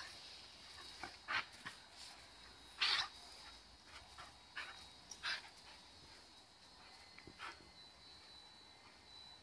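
English Setter giving short, excited yips and barks while playing at a hand brush. There are about seven brief calls, the loudest about three seconds in, and they die away after about seven and a half seconds.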